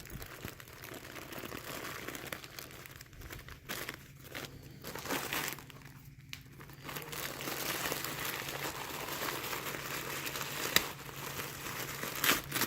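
Wrapping crinkling and rustling as a ribbon-tied package is handled and unwrapped by hand, with a couple of sharp clicks near the end.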